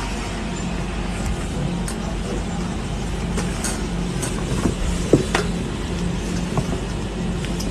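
Steady low mechanical rumble, with a few short clicks about five seconds in.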